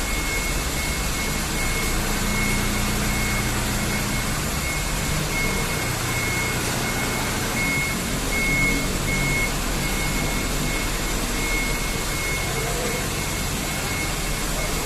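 Toyota Dyna 125 HT box truck's engine running steadily, with a high electronic beep sounding on and off, as from a reversing alarm.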